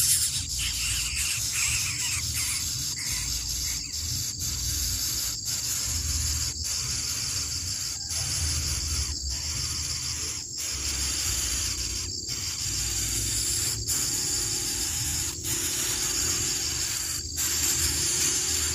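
Steady high-pitched chorus of insects trilling without a break, over a low rumble.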